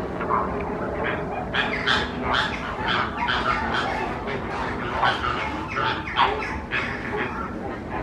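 A flock of birds calling over and over in short, harsh calls, several a second, overlapping throughout.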